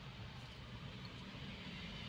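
Car in slow city traffic, heard from inside the cabin: a steady low rumble of engine and road noise.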